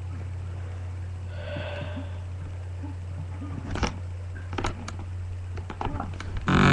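Steady low hum of a webcam microphone, with a faint pitched sound about a second and a half in, then scattered mouth clicks and breathy sniffing noises, and a louder rough burst near the end.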